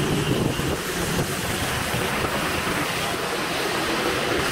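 Steady rush of wind over the microphone mixed with road and tyre noise, heard while riding a motorbike through traffic on wet roads.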